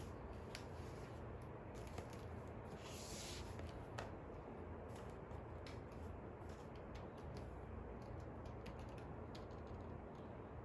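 Faint desk sounds of studying: scattered light clicks and taps of a pen on paper, with a brief paper rustle about three seconds in, over a steady low hum.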